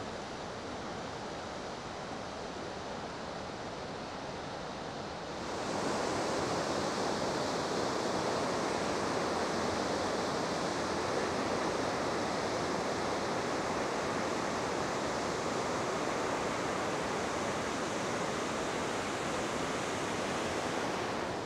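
Steady rush of whitewater from a fast creek's rapids, becoming louder and brighter about five and a half seconds in.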